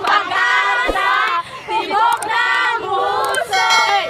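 A group of young student carolers singing a Filipino Christmas carol together in short sung phrases.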